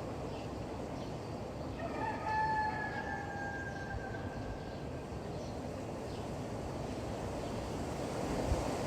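A rooster crowing once, a long drawn-out crow starting about two seconds in and slowly falling in pitch as it fades, over steady wind noise.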